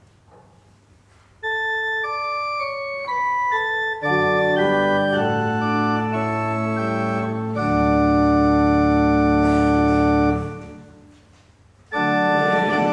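Pipe organ playing a hymn introduction: first a single melody line, then full chords over a bass, ending on a long held chord that dies away. About a second later, near the end, the organ starts again with the congregation singing the hymn.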